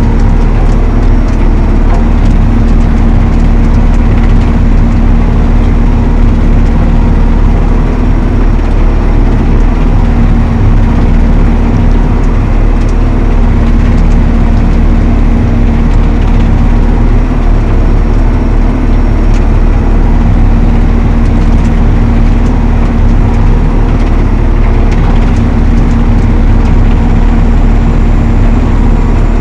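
Valtra T214 tractor's diesel engine running steadily under working load while driving the Elho Tornado chain mower. It is a loud, unbroken drone with a constant pitch throughout.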